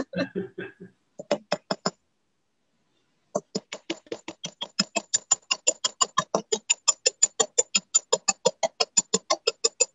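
Small riveting hammer tapping a copper rivet set through aluminium sheet on a metal bench block, spreading the rivet head into a rounded mushroom. A short run of five taps, a pause of about a second and a half, then steady rapid tapping at about five or six taps a second.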